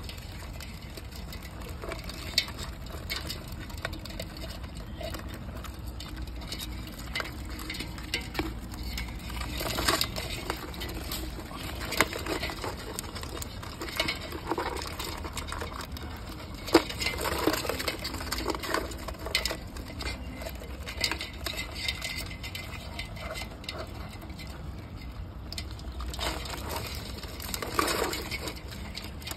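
Live crabs in a metal pot, their shells and legs scraping and clicking against each other and the pot, with scattered sharper clicks.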